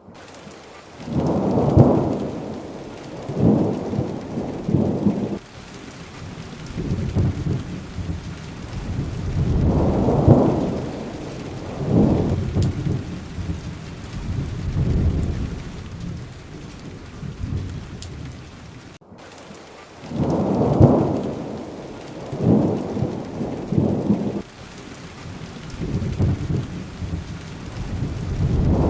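Thunderstorm: steady rain with rolls of thunder rumbling up and fading every couple of seconds. The sound cuts out completely for a split second about two-thirds of the way through.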